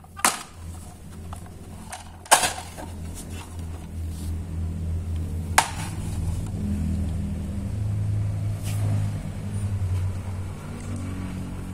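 Three sharp plastic clacks from a shark-shaped jaw toy as it is snapped shut and pried open, over a steady low rumble that swells in the second half.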